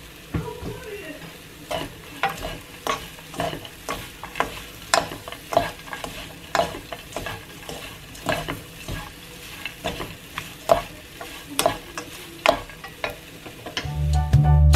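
Two wooden spoons scraping and knocking against a nonstick wok while tossing dried anchovies with sesame seeds, about two strokes a second. Music comes in near the end.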